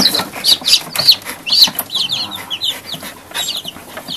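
A box of baby chicks peeping: many short, high-pitched chirps overlapping, several a second.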